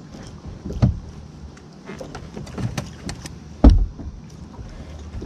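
Low rumble with dull knocks on a bass boat's deck, the loudest knock about two-thirds of the way in.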